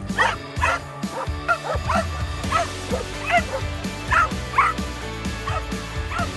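Dogs barking repeatedly, about a dozen short barks unevenly spaced, over background music.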